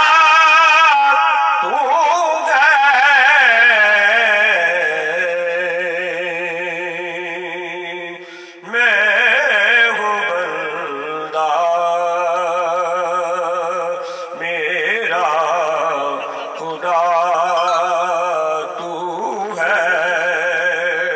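A man singing into a microphone in long, held notes with strong vibrato, in several phrases broken by short breaths.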